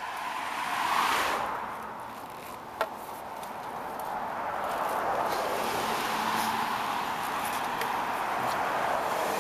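Road traffic noise from car tyres passing: one vehicle swells and fades about a second in, then traffic noise builds again and holds steady. A single sharp click comes near three seconds in.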